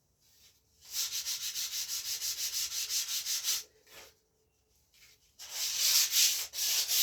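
220-grit sandpaper on a supple rubber block rubbing back and forth over the rawhide backing of a wooden bow, about five quick strokes a second. It comes in two runs: it starts about a second in, stops for about a second and a half, then resumes near the end.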